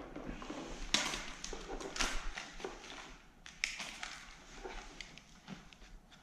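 Scattered light clicks and knocks of a handheld clamp meter and its test leads being handled, a few sharp ticks among softer rustling.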